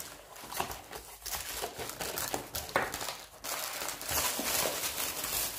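Plastic wrap and cardboard packing inserts crinkling and rustling as a boxed lamp is handled and unpacked, irregular crackles that grow denser and more continuous about three and a half seconds in.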